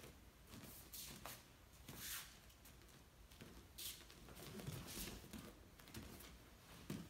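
Faint, soft padding of bare feet on foam mats, with a few light brushes and rustles of clothing as one person grabs another from behind near the end.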